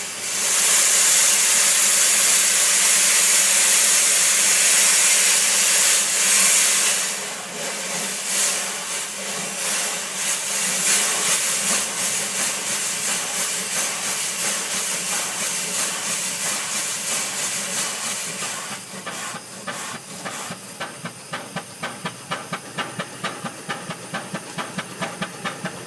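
Steam engine starting up: a loud hiss of escaping steam for about seven seconds, then the engine's exhaust chuffs in a rhythm that settles into a steady, quicker beat of a few chuffs a second.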